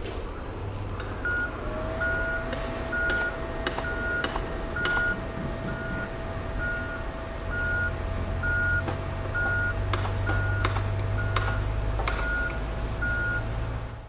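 Heavy construction vehicle engine running, with its reversing alarm beeping steadily a little under twice a second. A steady whine comes in about two seconds in, and there are scattered knocks. The engine grows louder past halfway.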